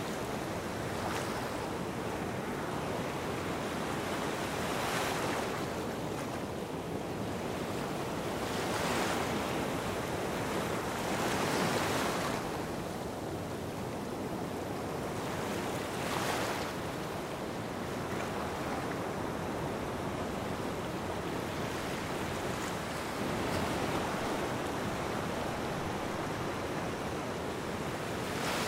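Gentle waves washing onto a sandy shore: a steady wash of water with a soft rush swelling and fading every few seconds.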